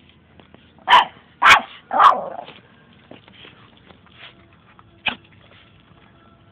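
Small dog barking three times in quick succession about a second in, with one shorter, sharper bark near the end.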